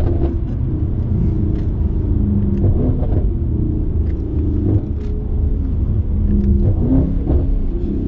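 Stage 2+ tuned Mercedes-AMG E63 S's twin-turbo V8 with aftermarket exhaust, heard from inside the cabin while driving: a steady low engine drone whose pitch wanders up and down.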